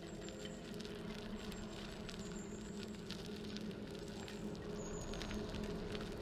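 A low, steady droning chord from an ambient score, with faint ticks and a few brief high chirps over it.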